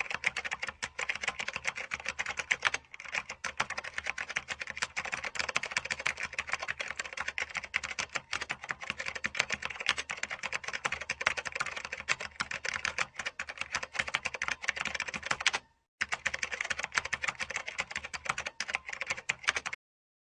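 Fast, continuous typing on a computer keyboard, a dense run of key clicks. It breaks briefly about three seconds in and again near sixteen seconds, then stops just before the end.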